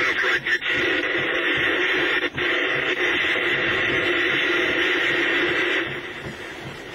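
Police scanner radio speaker hissing with static on an open channel, no voice coming through. It cuts off abruptly about six seconds in as the transmission ends.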